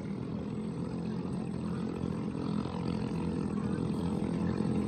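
Engines of racing ketinting longtail boats droning steadily across the water, growing a little louder toward the end.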